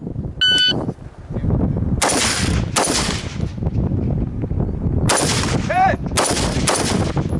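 A shot-timer start beep sounds about half a second in. Then an AR-15 carbine fires four spaced shots, at roughly 2, 3, 5 and 6 seconds, each trailing off in echo, with a fifth shot right at the end.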